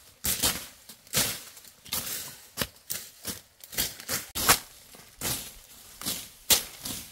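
Undergrowth being cleared by hand with a blade: a quick, uneven run of chopping, slashing strokes, about two a second.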